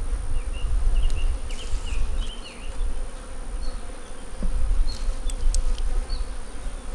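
Honey bees buzzing around an open hive during a frame inspection, a steady hum with a few light clicks, over an uneven low rumble.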